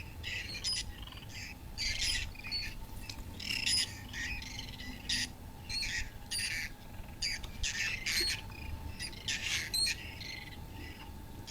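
Birds calling over and over, short high calls about twice a second, with a faint steady tone beneath.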